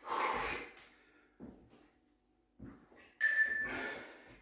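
A man breathing hard after a round of high-intensity interval training: a heavy exhale at the start, a few faint breaths, then another heavy breath about three seconds in that opens with a short high whistling tone.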